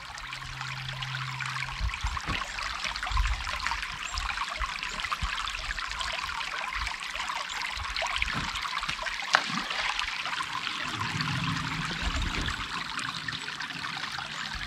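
Shallow brook babbling over stones, a steady rushing trickle, with one sharp tap about nine and a half seconds in.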